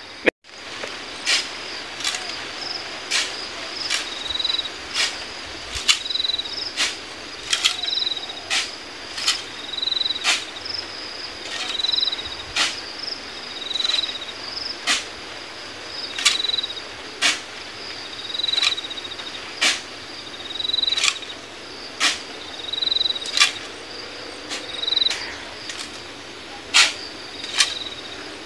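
Hand shovelling of sand into a dump truck's bed: sharp scrapes and knocks of the shovel about once a second. Behind it runs a steady high-pitched insect drone, with short insect chirps repeating about once a second.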